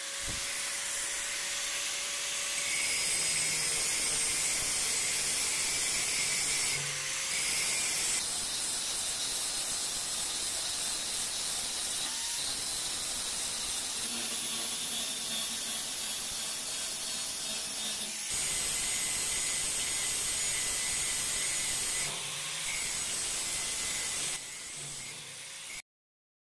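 Angle grinder's disc grinding the end of a rusty steel chisel: a steady hissing grind of disc on metal. It comes in several stretches that change abruptly in level and pitch, and cuts off suddenly near the end.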